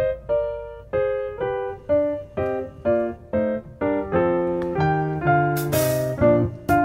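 Background music played on a piano-like keyboard: a melody of single notes, about two or three a second, each one fading away.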